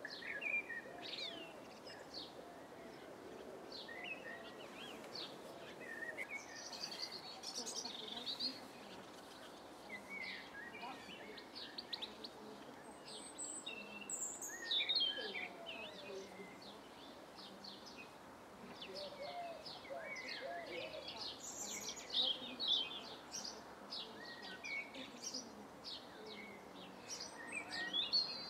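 Several garden birds singing and calling in quick, overlapping chirps and trills, over the steady hiss of light rain.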